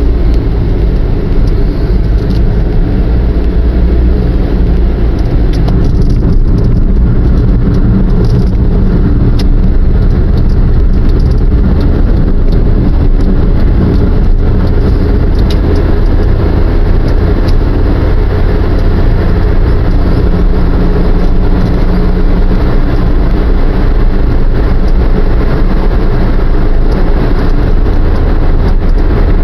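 Cabin noise of a moving car: a steady low rumble of engine and tyres on the road.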